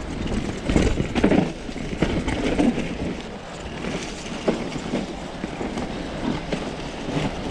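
A mountain bike being ridden over a muddy trail: tyres rolling through mud with irregular knocks and rattles from the bike, and wind buffeting the microphone.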